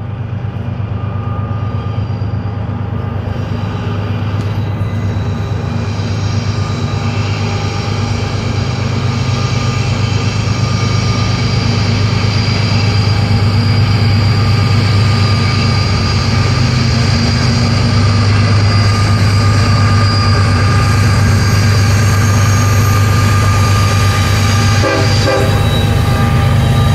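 CSX diesel freight locomotives pulling a train across a railway bridge: a steady low engine drone with several steady higher whines, growing gradually louder as the train approaches.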